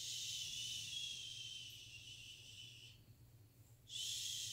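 A woman shushing, a long steady "shhh" that fades out about three seconds in, followed by a second "shhh" starting near the end, to soothe a puppy and keep it still.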